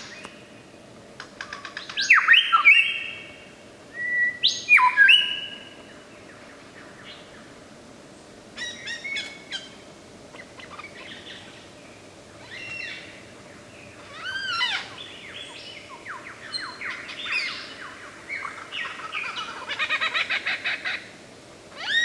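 Lyrebird singing a varied run of loud whistled phrases with pauses between them: sweeping notes, arched rising-and-falling calls, and a fast stuttering run near the end.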